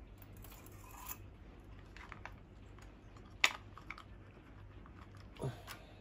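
Parts of a D-Cobra spring airsoft M4 being handled and fitted together: faint rustling and small clicks, one sharp click about three and a half seconds in, and a duller knock near the end.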